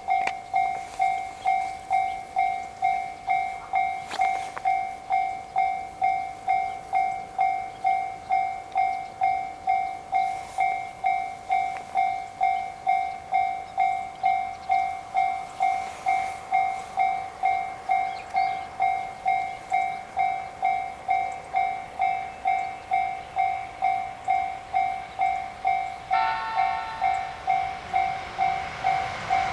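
Japanese level crossing's electronic warning bell ringing steadily at just under two strikes a second, signalling an approaching train. Near the end a second set of tones joins the bell.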